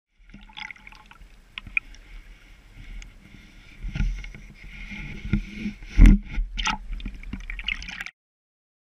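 Stream water splashing and sloshing right at the microphone, mixed with knocks and bumps from the camera being handled at the water's surface. The loudest bump comes about six seconds in, and the sound cuts off suddenly about eight seconds in.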